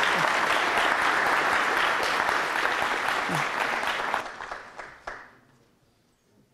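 Audience applauding in a lecture hall, the clapping dying away about four seconds in, with a few last scattered claps before it stops.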